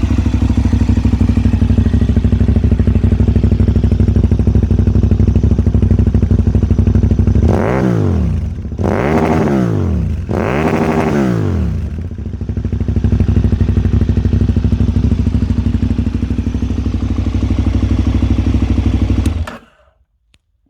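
KTM 990 Super Duke's LC8 V-twin, breathing through a LeoVince SBK Oval Evo II aftermarket exhaust, idling, then revved three times in quick succession about midway. It settles back to idle and cuts off suddenly near the end.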